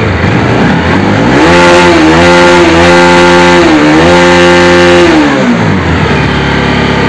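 Bajaj Pulsar NS200's single-cylinder engine running and being revved on the throttle. The revs rise about a second in, dip briefly near the middle, rise again, then fall back to idle about three-quarters of the way through. The bike is running again after its rat-chewed wiring was rejoined.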